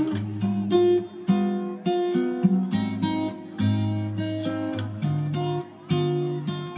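Background music: a guitar playing chords, a new chord about every second.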